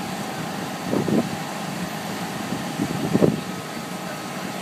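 Steady noise of the inflatable bouncy castle's electric blower fan running, with two brief louder sounds about one second and about three seconds in.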